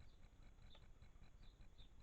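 Near silence: faint background hiss with a faint, rapid, evenly spaced high ticking and a steady faint high whine, and one slightly stronger click about three quarters of a second in.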